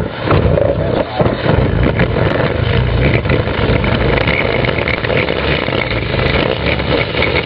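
Dryer vent cleaning equipment running with a loud, steady motor noise.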